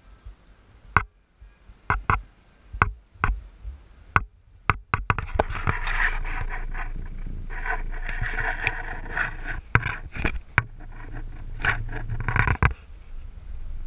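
Car driving slowly over a rough dirt road, heard through a car-mounted camera: sharp knocks and rattles about once a second, then from about five seconds in a rough, scraping rush of tyres on the surface that eases off shortly before the end.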